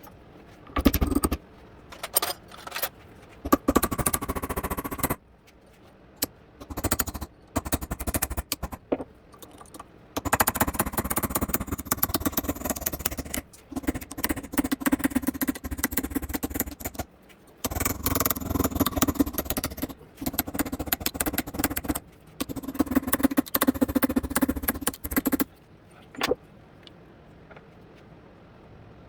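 Repeated bursts of scraping and rattling, each lasting one to three seconds with short pauses between; the longest bursts come in the second half.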